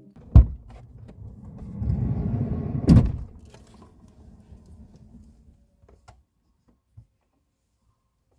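Car door being shut: a knock, then a rolling rumble that ends in a loud slam about three seconds in, followed by a few faint clicks.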